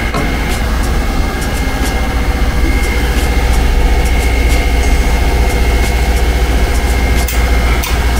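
Steady low machine hum with a thin high whine above it and a few faint light clicks: workshop machinery running.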